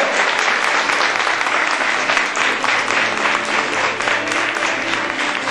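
Audience applauding: a loud, steady mass of many hands clapping.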